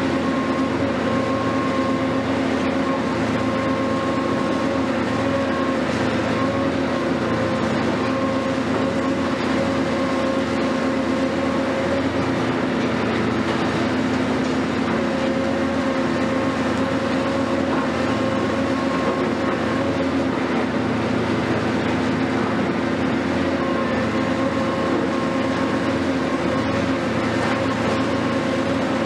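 Hitachi 470 demolition excavator running steadily, its engine and hydraulics giving a continuous drone with a steady whining tone over it.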